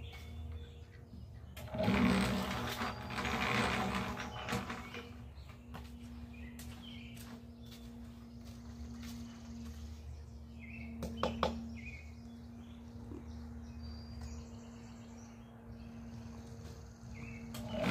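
Small Harbor Freight 1-1/4 cubic foot electric cement mixer running with a steady hum while it mixes a batch of concrete. About two seconds in a loud rushing noise lasts about three seconds, two sharp clicks come a little past halfway, and small birds chirp now and then.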